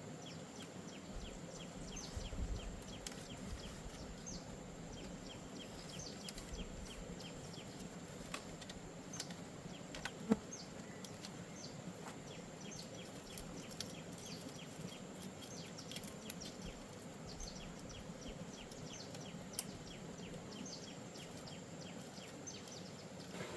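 Outdoor ambience of small animals chirping: short high chirps repeating several times a second almost without pause, over a thin steady high whine. A single sharp click about ten seconds in.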